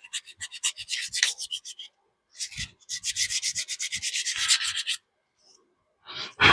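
Sandpaper being rubbed back and forth over a PVC pipe in quick strokes, in two runs with a short pause between, easing the pipe so a sticking fitting slides more freely. A loud breath near the end.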